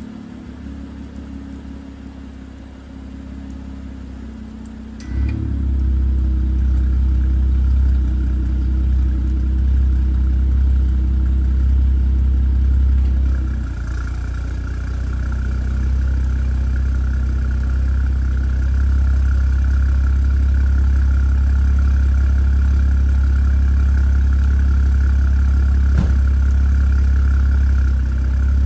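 BMW X5 F15's N55 turbocharged straight-six, on a stage 2 tune with a catless downpipe and the stock muffler, heard at the exhaust. It starts up sharply about five seconds in and then idles with a steady deep note. Around the middle the tone changes slightly and stays steady as the car is switched to sport mode.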